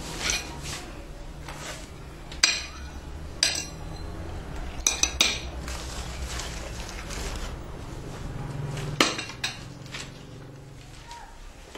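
Cutlery and dishes clinking: a scattering of sharp clinks, a couple of them in quick pairs, as utensils knock against plates.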